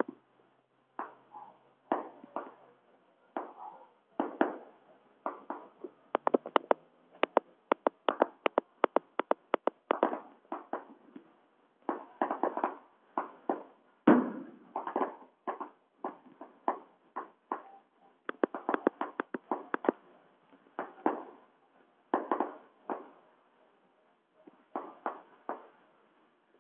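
Fireworks going off in a string of bangs and pops, with a quick run of sharp cracks from about six to ten seconds in and the biggest bang about fourteen seconds in.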